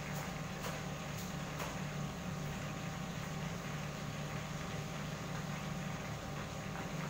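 Fish frying in hot oil in a covered frying pan on a gas stove: a steady hum and hiss with scattered pops and crackles, a few of them in the first two seconds.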